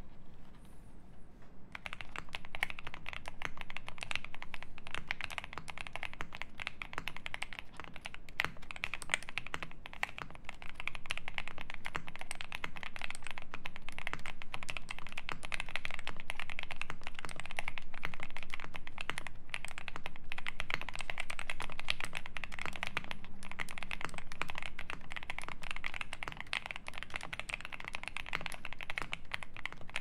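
Continuous typing on a Mr. Suit mechanical keyboard with lubed Marshmallow switches, a polycarbonate plate, full foam and GMK keycaps: a dense stream of key clacks, with only a few scattered strokes before it settles into steady typing about two seconds in.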